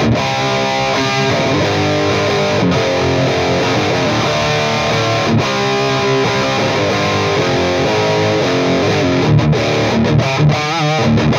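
Electric guitar played through a PRS Archon 50-watt tube amp with the gain at about halfway: distorted rock chords and riffs with a full low end, less fizz and more percussion than high-gain metal. Wavering vibrato notes come in near the end.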